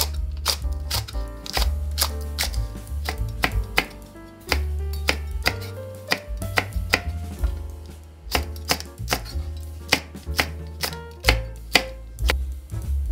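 Chef's knife slicing green onion and red and green chili peppers on a wooden cutting board: a quick, uneven series of sharp knife strikes against the board, a few a second.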